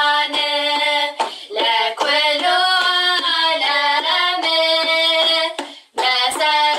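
Ethiopian Orthodox mezmur (hymn) sung in held, sustained phrases, with sharp hand claps recurring through it.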